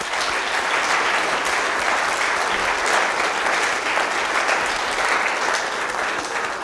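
Audience applauding: dense, steady clapping from a roomful of people that starts to fade near the end.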